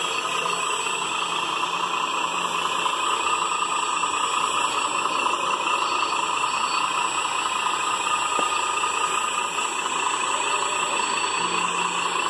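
Radio-controlled hydraulic wheel loader running steadily as it lifts its loaded bucket and dumps dirt into a dump truck.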